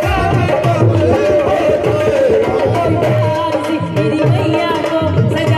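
Hindi Mata bhajan performed live: a woman singing through a microphone and PA speakers, accompanied by an electronic keyboard and a steady drum beat.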